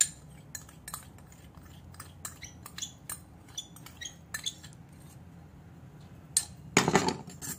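Steel spoon clinking and scraping against a small cut-glass bowl as ghee is emptied into a bowl of flour, a run of light irregular clinks, with a louder clatter about seven seconds in.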